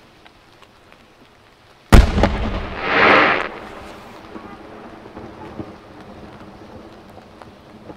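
A single aerial firework shell bursting: one sharp boom about two seconds in with a rumbling tail, then a hissing noise that swells and fades about a second later. Light rain patters faintly throughout.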